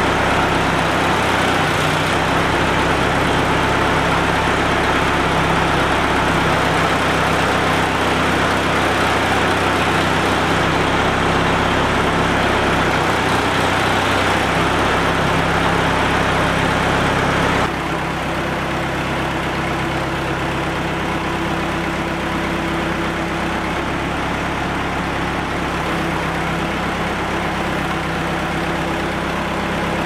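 Massey Ferguson 300 tractor engine running steadily while it drives the backhoe hydraulics, its pitch shifting slightly as the boom is worked. About two-thirds of the way through, the sound drops suddenly to a somewhat quieter level and the engine runs on.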